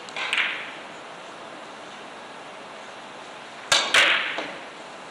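A three-cushion carom billiards shot. The cue strikes the cue ball just after the start, and about three and a half seconds later two sharp clicks come close together as the balls collide.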